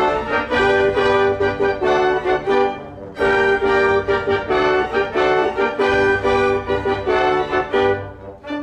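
An ensemble with violins playing a piece, breaking off briefly about three seconds in and starting again; it drops in volume near the end.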